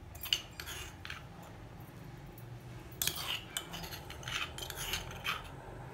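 Kitchen knife chopping garlic on a wooden cutting board: a few separate strokes in the first second, then a quicker run of short chopping and scraping strokes from about three seconds in.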